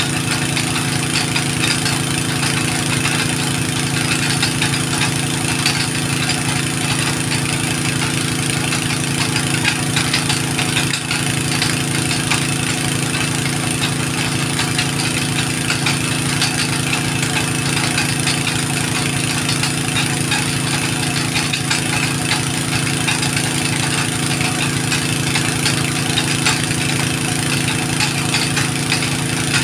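An engine running at a steady, unchanging speed.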